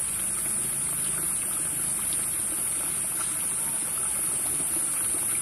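Steady high-pitched drone of insects in chorus, slightly pulsing and unbroken, over a soft background hiss.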